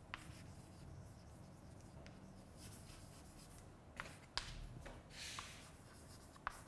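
Chalk writing on a blackboard: faint scraping strokes with a few sharp clicks as the chalk meets the board.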